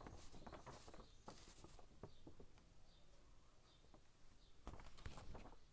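Near silence: faint room tone with a few soft scattered ticks.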